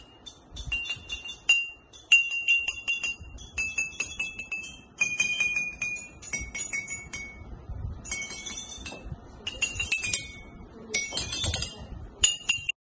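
A row of drinking glasses struck with a stick to play a tune: quick ringing clinks in short phrases, each glass giving its own note, the pitch stepping down from phrase to phrase through the middle.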